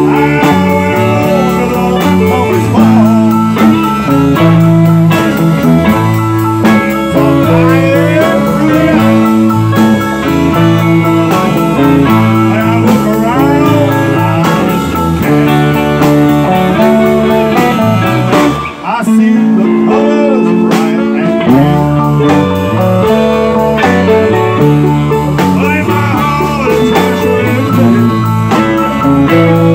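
Live swamp pop band playing a bluesy instrumental passage: electric guitar lead with bent notes over bass and drums. The band drops out for a moment about two-thirds of the way through, then comes back in.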